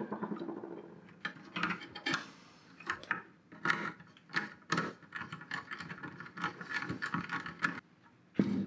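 Irregular clicks, taps and light metallic rattles of hand assembly on a steel amplifier chassis: an on/off switch being fitted and a screwdriver working its screws. There is a denser stretch of rattling and scraping in the second half.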